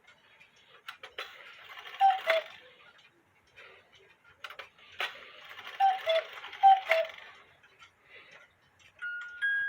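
Regula 701 cuckoo clock movement calling: a falling two-note cuckoo from the bellows pipes, once about two seconds in and twice more around six to seven seconds, each over a hiss of bellows air with the clatter of the striking levers before it. Near the end the clock's music box starts to play.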